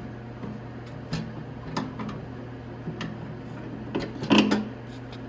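Motorcycle fuel tank being fitted onto the frame: a few light taps and knocks, then a louder clunk about four seconds in as the tank's notches slip into place.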